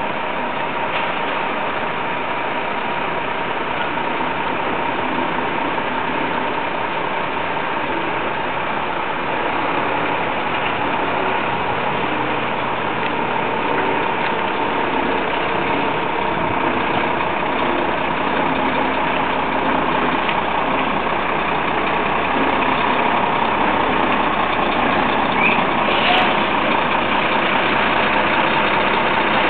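Truck engine idling steadily, growing slightly louder over the second half.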